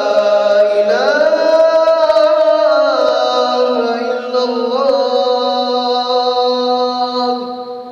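A man's voice chanting the adhan, the Islamic call to prayer, drawing out one long ornamented phrase. The pitch swells upward about a second in, then settles into a long held note that fades away near the end.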